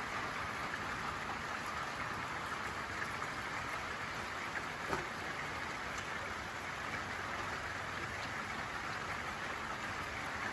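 Steady hiss of rain falling, with an occasional faint tick of a drop.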